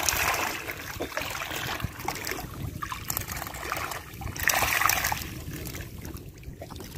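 Seawater splashing and sloshing as a mesh net bag packed with fish is dragged through shallow water, with louder splashes at the start and again about four and a half seconds in.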